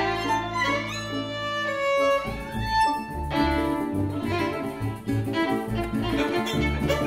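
A string ensemble plays: violins carry a quick melody over held string chords. About two seconds in, the double bass takes up a rhythmic plucked pulse and the texture turns dance-like, with Venezuelan cuatro strumming and maracas in the band.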